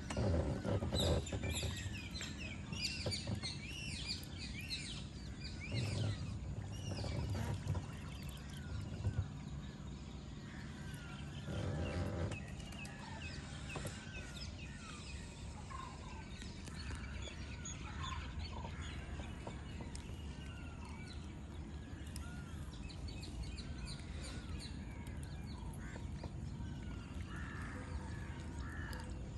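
Many short chirping calls from birds and other animals in the lakeside trees, thickest in the first few seconds and scattered after that, with a few soft knocks from the net and pole being handled in the boat.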